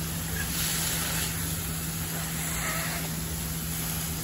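Wet lion's mane mushroom pieces dry-frying in a hot cast-iron skillet, a steady sizzle and hiss as they give off water and steam, with a low steady hum underneath.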